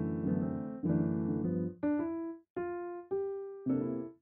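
Background music played on a piano-like keyboard: chords at first, a few single held notes in the middle, then chords again near the end.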